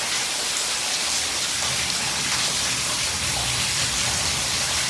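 Water pouring and splashing down inside a house, a steady hiss like heavy rain; the water is spilling over an edge and spreading across the floor.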